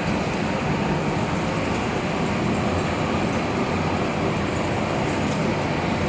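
Large vertical lathe running: a steady, even machine rumble with faint scattered ticks.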